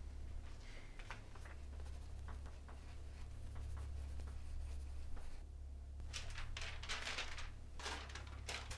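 Pencil writing on lined paper held against a door: a run of short scratching strokes, denser in the second half.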